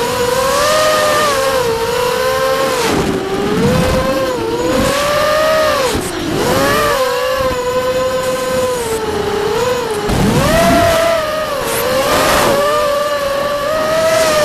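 Brushless motors and propellers of a Vortex FPV racing quadcopter, heard through its onboard camera. A high whine rises and falls in pitch with the throttle, dipping sharply about three times, with gusts of wind rush at those dips.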